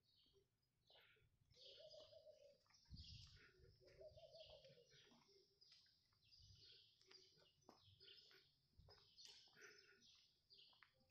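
Small birds chirping faintly: many short, high chirps overlapping throughout, with two longer, lower arching notes about two and four seconds in.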